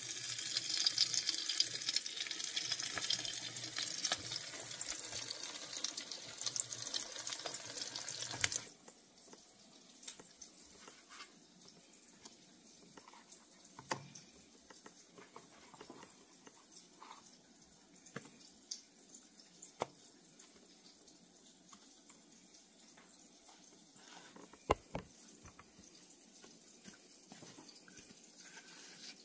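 Breaded grit square shallow-frying in hot oil in a skillet, sizzling with a steady high hiss that cuts off suddenly about eight seconds in. After that, it is quiet except for faint scattered taps and clicks from hands dipping grit squares in egg wash and crumbs in plastic containers.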